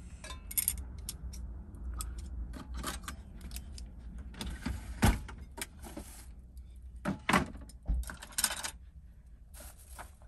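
Metal cutlery and small camp cookware clinking and rattling as they are put away, with a few knocks of a kitchen drawer being pulled open and items dropped into it.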